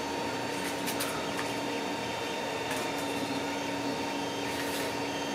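Steady machine hum with two fixed tones, with a few faint light clicks about one, three and four and a half seconds in.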